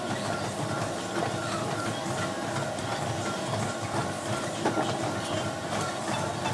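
Gym treadmill running: a steady motor whine over the rumble of the moving belt.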